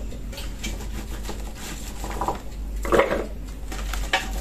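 Peeled garlic cloves being scooped by hand out of a stainless steel pot, clattering and rubbing against the metal, with short clatters about two seconds in and again, louder, about three seconds in.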